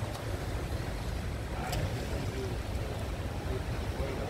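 Steady low rumble of wind and rough water around a small boat, with a single light click a little under two seconds in.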